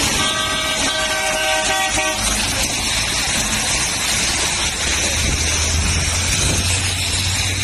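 A vehicle horn sounds once for about two seconds at the start, over a steady rush of heavy rain and traffic on a wet road.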